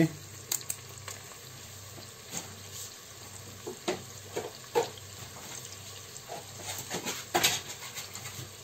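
Sliced onions sizzling in hot oil and butter in a multicooker bowl: a steady frying hiss with scattered crackles and pops.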